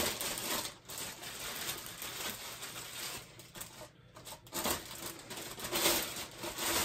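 Light metallic clinks and scrapes from ceramic-coated motorcycle exhaust pipes being handled.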